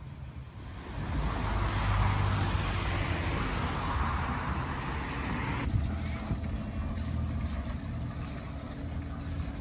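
Vehicle noise: a low engine rumble under a loud rushing hiss that rises about a second in and cuts off abruptly a little over halfway through.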